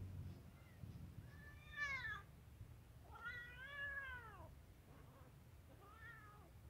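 A hungry kitten meowing three times, each call rising and then falling in pitch, the middle one the longest.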